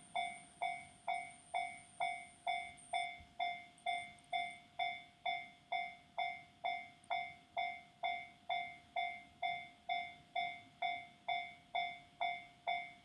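Japanese railway level-crossing warning bell ringing steadily, a clear ringing strike repeating about twice a second, each one fading before the next: the crossing is signalling that a train is coming.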